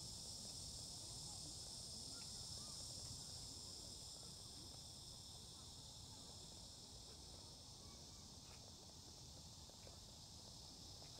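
Faint steady high-pitched chorus of night insects such as crickets, over a low background rumble.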